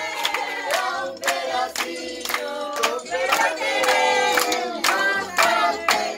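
A group of children and adults singing a birthday song together, clapping along in time at about two claps a second.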